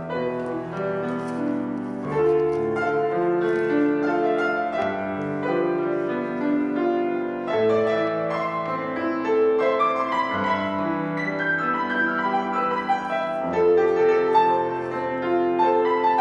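Solo grand piano playing a classical piece: overlapping held chords under a melody line, without a break.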